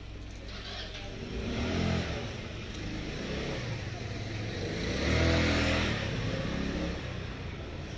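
A small motor vehicle, likely a motor scooter, running close by with its engine note rising and falling, swelling once about two seconds in and loudest about five seconds in, over street background noise.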